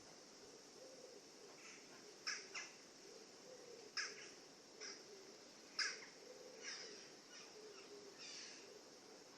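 Wild birds calling in a forest: a few short, harsh squawking calls stand out over softer low warbling and a faint steady background hiss.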